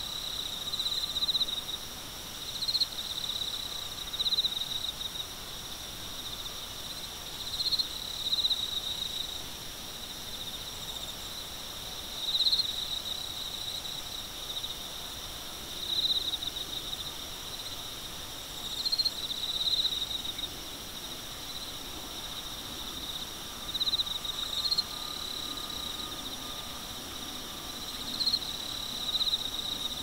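Singing insects: a steady high-pitched trill, with a louder chirping phrase that repeats every two to four seconds.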